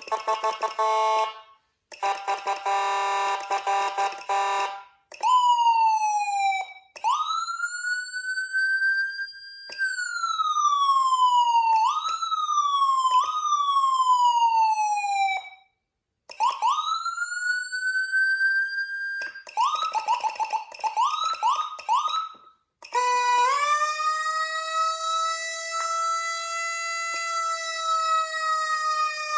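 Whelen CenCom Sapphire electronic siren sounding a run of different tones one after another: a rapidly pulsing buzzy horn tone, a steady buzzy horn tone, falling and rising wail sweeps, a burst of quick rising chirps, and, from about two-thirds in, a long tone that winds up and then holds almost steady.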